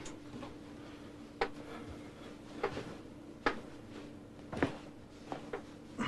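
About six short, sharp clicks at irregular intervals, roughly a second apart, over a faint steady hum.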